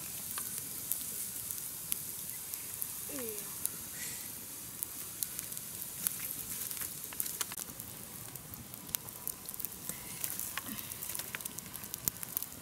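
Meat roasting over an open wood fire, sizzling steadily, with many short sharp crackles and pops.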